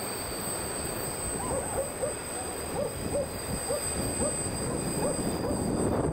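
Passenger train hauled by an electric locomotive approaching: a steady rumble that grows louder near the end. Through the middle there is a run of short, pitched squeaks, a few each second.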